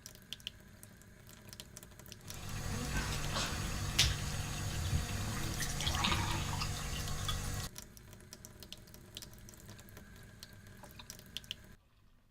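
Water running from a tap into a sink for about five seconds, starting and stopping abruptly, with faint drips and small ticks before and after.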